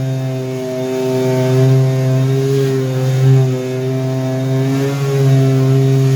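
An electric power tool's motor running steadily, with a constant hum and slight swells in loudness as it works.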